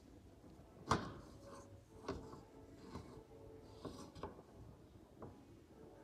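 Six irregular sharp plastic clicks and knocks, the loudest about a second in, from the plastic door frame and handle parts of a Beko washing machine door being handled and worked during the handle replacement.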